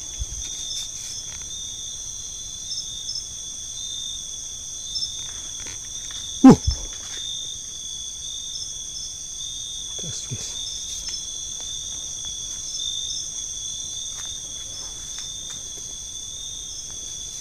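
Night chorus of crickets and other insects: several steady, high-pitched trills at different pitches. About six and a half seconds in there is one sudden loud thump, and near ten seconds a fainter one.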